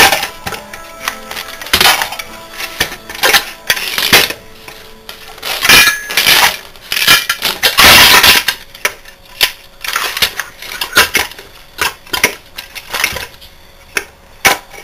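Metal clanking, clinking and rattling as the crankcase of a Briggs & Stratton 12 hp vertical-shaft engine is worked apart by hand, with loose broken pieces of the shattered connecting rod knocking about inside. It is an irregular run of sharp knocks and clinks, loudest about eight seconds in.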